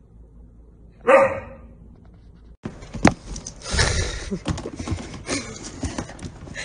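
A bulldog gives one short, loud bark about a second in. After a sudden break, a stretch of rustling and knocking follows, with a sharp knock at about three seconds.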